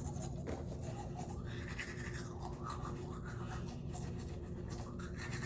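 Toothbrush scrubbing teeth, a steady scratchy brushing with no pauses.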